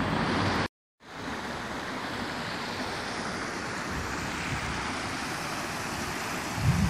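Steady rush of water from a small brook spilling over low stone weirs, starting after a moment of silence about a second in. Some wind rumbles on the microphone near the end.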